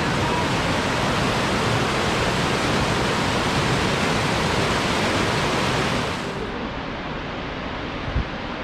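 Waterfall water rushing in a steady, loud roar of noise; about six seconds in it becomes a little quieter and duller, and a brief low thump comes near the end.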